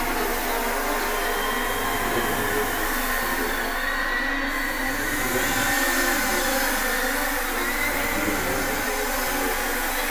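String quartet and synthesizer playing a contemporary piece: a steady, dense, noise-like sustained texture, like a hissing wash, with faint held high tones threaded through it and no beat.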